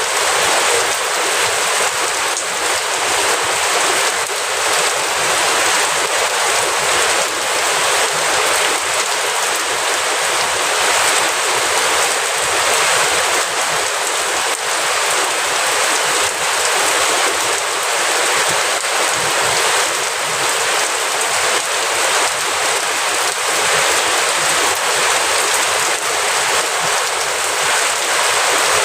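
Steady rain falling, with a fine, even patter of drops and little low rumble; no thunder.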